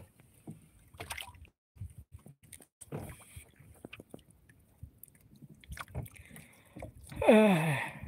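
Scattered light knocks and water sounds from a small fishing boat resting on the water, then near the end a loud, drawn-out sound sliding steeply down in pitch.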